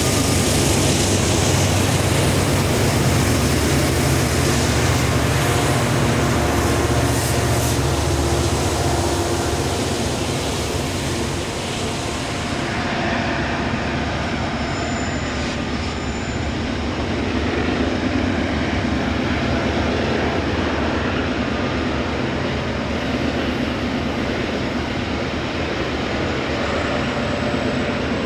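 Canadian Pacific diesel locomotives hauling a loaded coal train up a grade: a steady heavy engine rumble with the noise of the cars rolling on the rails. About halfway through it changes abruptly to the sound of the lead locomotives coming around a curve toward the listener.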